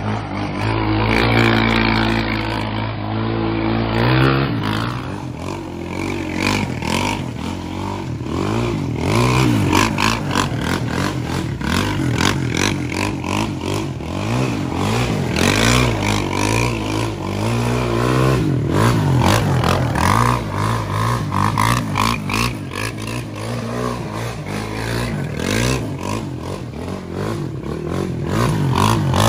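Sport quad ATV engine, idling steadily for the first few seconds, then revved up and down over and over as it is ridden in tight turns on gravel, with repeated clattering and scraping.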